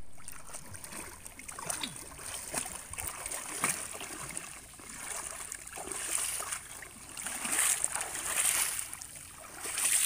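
Swimming-pool water splashing and sloshing around a child wading chest-deep, in uneven surges with small sharp splashes.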